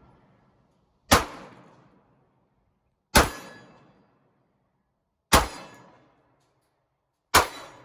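Glock 19 pistol firing 9mm rounds: four single shots about two seconds apart, each followed by a short fading echo.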